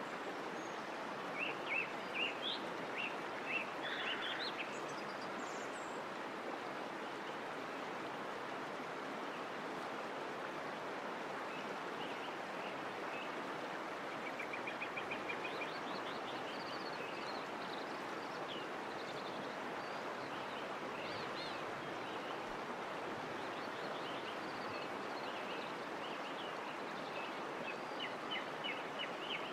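Steady rush of flowing water, like a stream or waterfall, with small birds chirping now and then: a few seconds in, around the middle and near the end.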